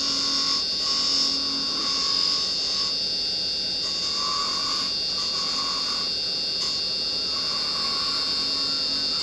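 Wood lathe running with a steady whine while a carbide detail chisel takes fine shavings off a spinning spindle, the cutting hiss swelling and easing.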